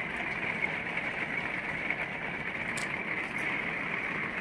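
Steady background hiss of room noise, with a few faint light clicks about three seconds in as coins are handled in the palm.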